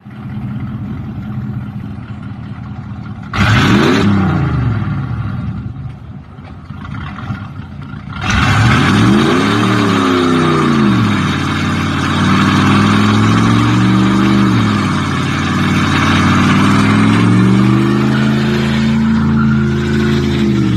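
Car engine idling and being revved about four times, each rev rising and falling back to idle, with a sudden step up in loudness about eight seconds in.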